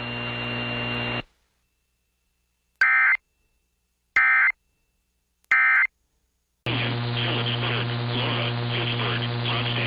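Steady electrical hum on the broadcast audio at the end of an Emergency Alert System warning, cutting off about a second in. After a moment of silence come three short, identical data bursts about a second and a half apart: the EAS End of Message code. Near the end a loud, continuous, hum-laden noise starts up.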